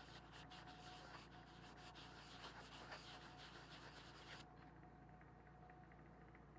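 Camera lens being wiped clean of a smudge: quick, repeated rubbing strokes directly on the lens that stop suddenly about four and a half seconds in.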